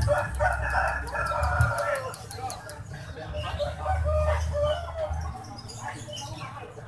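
Rooster crowing: a long call over the first two seconds that drops in pitch at its end, then a shorter call around four seconds in. This is the unusual crow that the uploader likens to calling the name 'Jokowi'.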